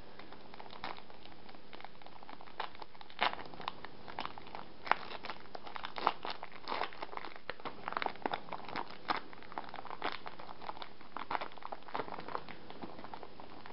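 Foil wrapper of a Japanese Pokémon Team Rocket booster pack crinkling and tearing as it is pulled open by hand, in many irregular sharp crackles.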